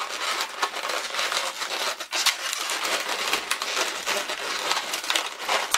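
Inflated latex modelling balloons rubbing and creaking against each other as hands work a white balloon into a pink balloon frame. It is a dense, continuous run of short rubbing noises with no pauses.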